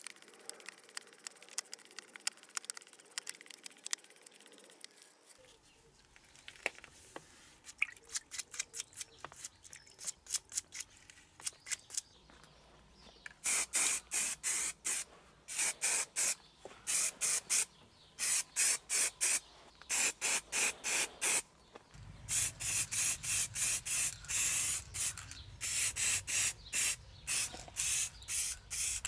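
Aerosol spray paint hissing out in many short bursts, each under half a second with brief gaps, coating a steel shaft's flange in gloss black. Before the spraying, a small wire brush scratches rust off the part with quick little scrapes.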